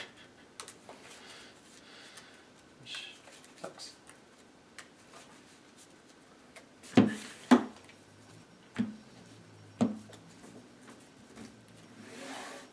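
Sleeved card decks handled on a wooden table, with faint clicks and rubbing throughout. Two sharp knocks come in quick succession about seven seconds in, then softer knocks, and a short rustle of cards near the end.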